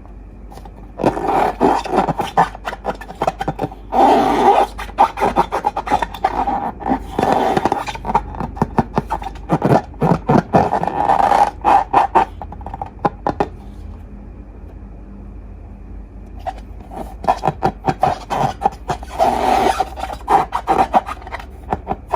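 Slime being squeezed and worked by hand, giving bursts of sticky crackling and popping. The sound pauses for a few seconds past the middle, then starts again.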